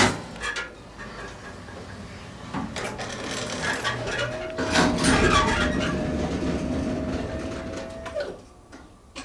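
A 1954 Otis elevator's door clicking shut, then the car starting to run: mechanical running and clatter heard from the car top, with a steady whine that starts about four seconds in and cuts off near eight seconds, after which it goes much quieter.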